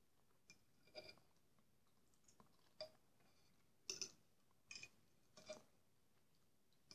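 Faint, scattered clicks of a metal spoon against a glazed bowl while spooning up kholodets, about seven light taps spread unevenly, with near silence between them.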